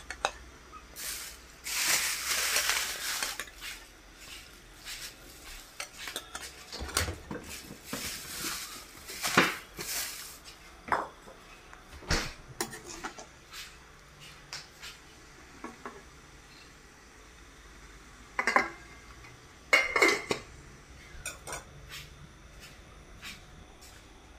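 A steel ladle scraping and clinking against a pan of simmering green curry as eggplant pieces are tipped in and pushed around: a long scrape about two seconds in, then scattered knocks and clinks.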